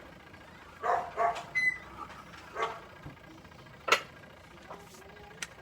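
A dog barking a few short times, then a single sharp click about four seconds in.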